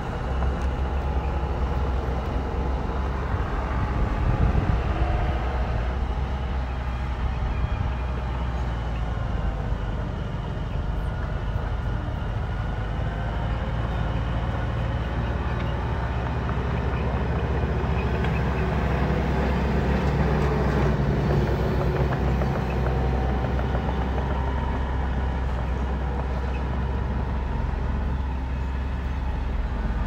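Diesel engines of earthmoving machinery (a bulldozer and dump trucks) running steadily, the engine note shifting slightly as they work.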